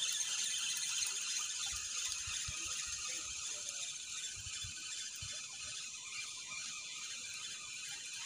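Spinning reel cranked steadily to wind in the line, its gears giving a continuous fine whirring and clicking.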